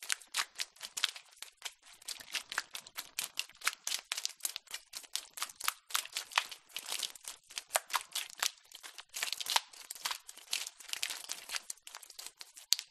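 A domestic cat chewing dry kibble: rapid, irregular crunching.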